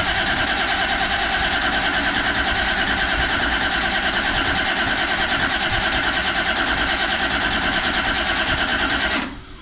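A 2JZ race engine being turned over on its starter, a steady fast, even chugging whir that winds down after about nine seconds without the engine catching.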